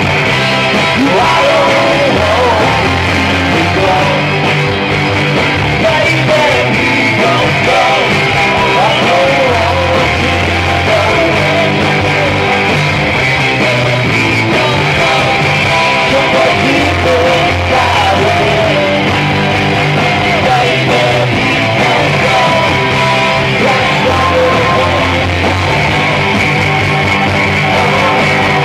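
Live rock band playing: electric guitars over bass and drums, loud and continuous, with a melody line wavering above the band.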